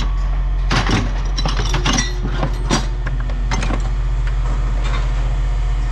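Pieces of scrap metal clanking, about half a dozen separate knocks as scrap is handled and tossed for sorting, over the steady low drone of a running engine.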